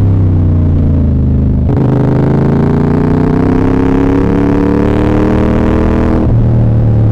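CF Moto 450SR-S parallel-twin engine accelerating, its note rising steadily in pitch for about four and a half seconds. Near the end the pitch drops abruptly back to a steady lower running note.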